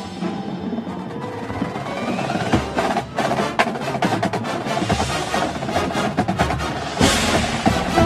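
Drum and bugle corps music: the marching percussion plays rapid drum strokes under sustained ensemble tones, and the full corps comes in louder about seven seconds in.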